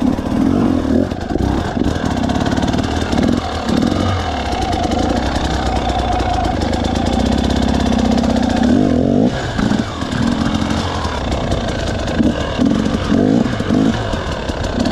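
2017 Husqvarna TE 300's single-cylinder two-stroke engine running at low speed. The revs rise and fall with the throttle, easing off briefly about nine seconds in.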